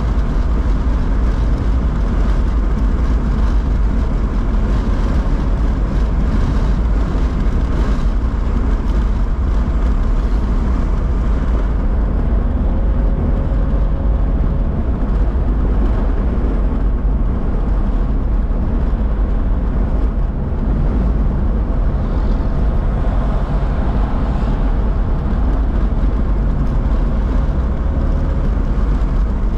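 Steady low rumble of a car's engine and tyres on wet road, heard from inside the cabin while driving.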